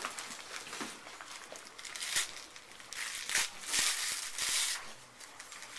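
Gift wrapping being crinkled and torn by hand as a small present is unwrapped: a few short rustles and rips, the busiest run a little after halfway.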